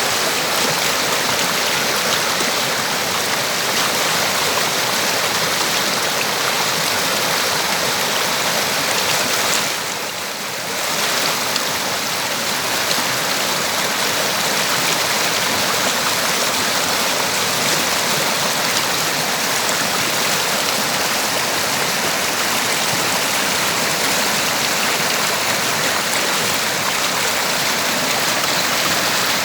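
River water rushing steadily, dipping briefly in level about ten seconds in.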